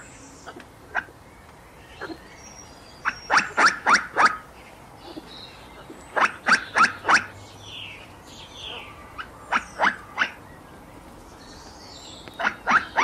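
Grey squirrel barking: bouts of four or five short, sharp calls in quick succession, repeated about every three seconds, with a few single calls early on. Bark series like this are typical of a squirrel raising an alarm.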